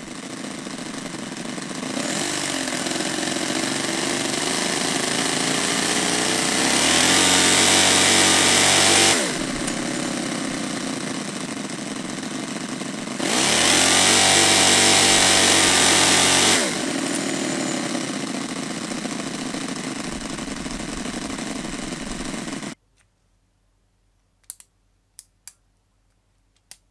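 Small model V4 engine of an RC car running with the wheels off the ground, driving them through its three-speed centrifugal-clutch transmission. It is revved up twice for a few seconds each, the pitch rising and then falling back, and the sound ends abruptly. A few light clicks follow near the end.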